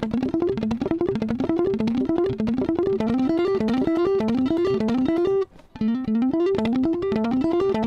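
Electric guitar played through a Boss CS-3 compressor pedal with the attack turned all the way up, giving a precise, sharply defined attack on each note. It plays a fast picked lead, the same rising run of notes repeated about twice a second. The run breaks off briefly about five and a half seconds in, then resumes.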